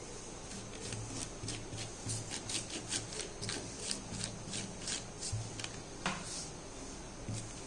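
Flat paintbrush scrubbing primer onto a badminton racket's metal frame and strings: quick, irregular scratchy strokes, about three a second.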